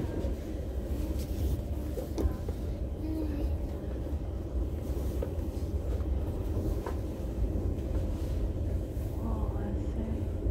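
Steady low rumble of a regional train running along the track, heard inside the carriage, with a few faint clicks.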